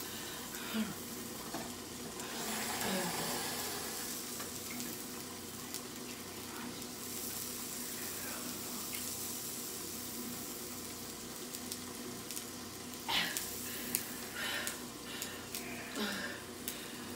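Kitchen tap running into a sink with a steady hiss, with a few light knocks and clatters near the end.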